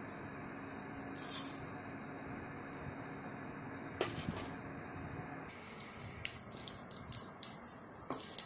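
Mustard seeds, urad dal and cumin sizzling in hot oil in a non-stick kadai for a South Indian tempering; from about halfway, small irregular pops start as the mustard seeds begin to splutter, the sign that the oil is hot enough and the tempering is nearly done. A wooden spatula stirs them near the end.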